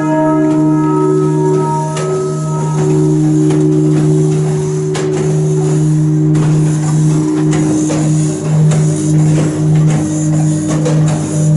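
A ring of four large bronze church bells, tuned A#, C#, D# and B, swinging and ringing close by inside the bell tower. Overlapping bell tones with a strong deep hum ring on from the strikes, with lighter clapper knocks now and then. In the second half the hum pulses.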